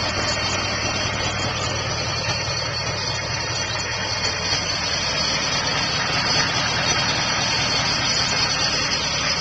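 A 1997 Chevy K1500's 6.5-litre turbo-diesel V8 idling steadily, heard close to its upright exhaust stack.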